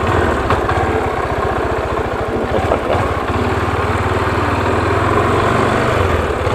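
Motorcycle engine running at low, steady revs, its firing pulses throbbing evenly.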